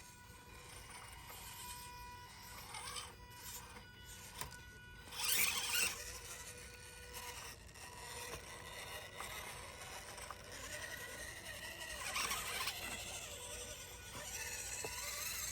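Small RC crawler running stop-and-start: a steady thin electric whine from its tiny motor and gears, with louder bursts of tire and chassis scraping about five seconds in and again about twelve seconds in. The driver puts the jerky throttle down to a jumpy ESC.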